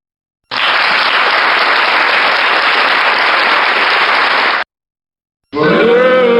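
Canned applause sound effect played from a live-streaming sound card's preset effect pad, lasting about four seconds and cutting off abruptly. Near the end a recorded laughter effect starts.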